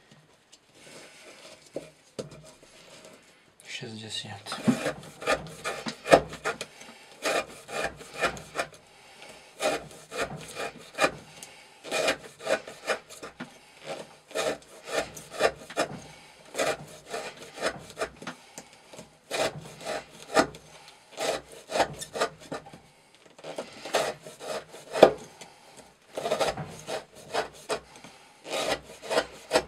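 Chris Reeve Sebenza 21 knife with its factory V-ground S35VN blade shaving curls off a wooden stick, stroke after stroke, roughly one to two cuts a second. The cuts grow louder and sharper about four seconds in.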